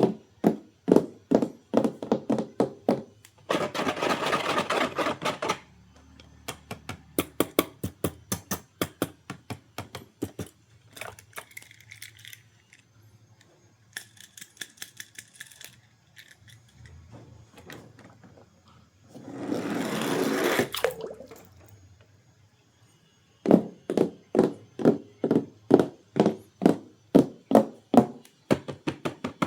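Evenly spaced, short struck notes, about three a second, pausing twice in the middle, with two loud bursts of hissing noise about four seconds in and near twenty seconds.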